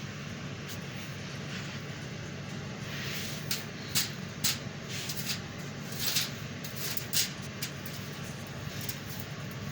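Air conditioner running with a steady low hum. From about three seconds in it is overlaid by a series of short, sharp, high-pitched clicks and squeaks, the loudest near four and six seconds in.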